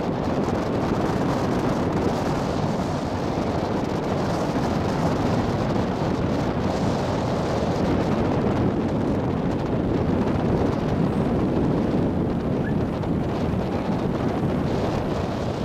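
Ferry under way: wind buffeting the microphone over a steady low noise of the boat's engine and water along the hull.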